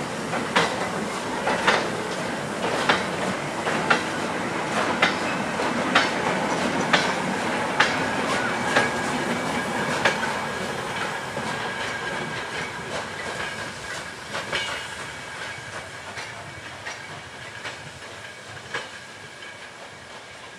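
Goods wagons of a steam-hauled freight train rolling past, their wheels clicking over the rail joints about once a second over a steady rumble. The sound fades through the second half as the train draws away, and a faint thin whine joins about halfway.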